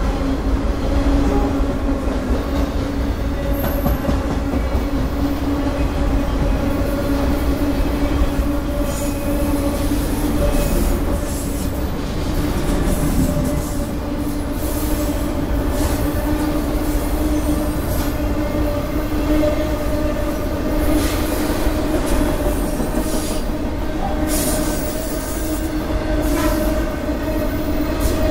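Multi-level autorack freight cars rolling slowly past, with a low steady rumble of wheels on rail and a steady squeal from the wheels, broken now and then by short high scrapes and squeaks.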